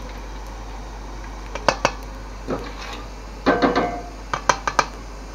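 Metal strainer ladle clinking and knocking against a steel wok and a stainless steel bowl while fried anchovies are scooped out of the oil. Sharp taps come singly at first, then in a quick cluster and a run of four near the end.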